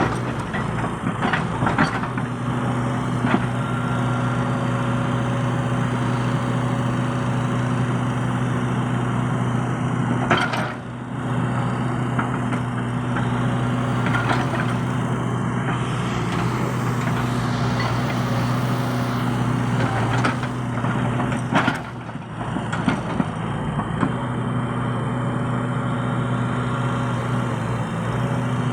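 Excavator's diesel engine running steadily, with scattered knocks and clanks, briefly dropping in level twice.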